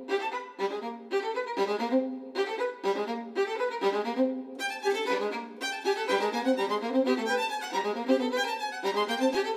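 Violin music: a violin playing short, separate notes in a quick, repeating pattern.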